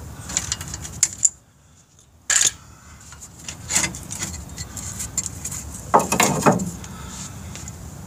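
Light metallic clinks and knocks as a front brake caliper is lifted off the rotor and handled, with a sharp knock about two seconds in and a longer clatter around six seconds.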